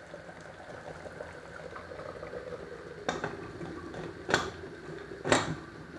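Mutton curry bubbling at a boil in a metal pressure cooker, with three sharp metallic knocks about three, four and five seconds in as the cooker's lid is fitted and closed.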